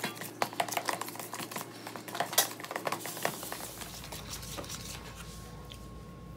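A metal utensil stirring cake batter in a plastic mixing bowl, with quick, irregular clicks and taps against the bowl. The clicking thins out about three seconds in, leaving quieter stirring.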